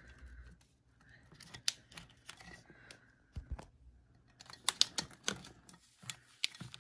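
Scattered light clicks and taps of hands handling glass storage jars with bamboo lids, pressing a peel-and-stick label holder onto one jar, with a cluster of clicks a little over halfway through.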